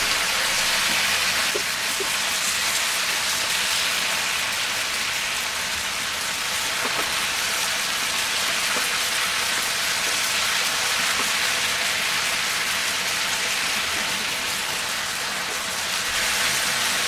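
Steady sizzling of Malabar spinach and salted hilsa frying in oil in a pan, the wet hiss of the greens giving off their water, with a few soft ticks of a plastic slotted spoon turning them.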